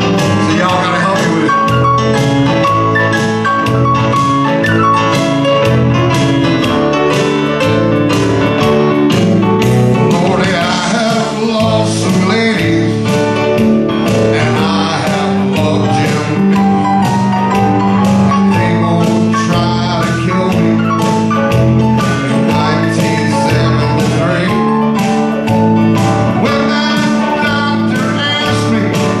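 Live country band music: a man singing over guitar and keyboard accompaniment.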